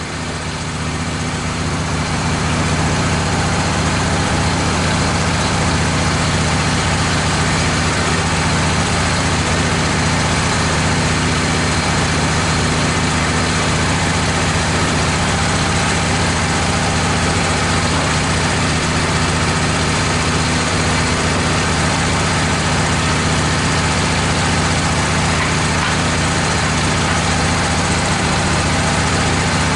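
Wood-Mizer LT15 portable bandsaw mill running under load as its band blade cuts a board through a red oak log: a steady engine drone with an even hiss of sawing over it. The sound builds over the first two seconds, then holds steady.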